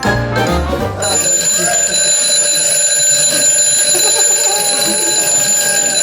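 Alarm clock ringing loudly and without a break, cutting in about a second in as a tinkly, jingling tune stops.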